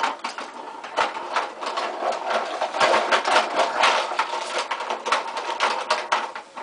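Plastic toys clattering and rattling against each other as they are rummaged through and handled, a rapid run of many small clicks and knocks.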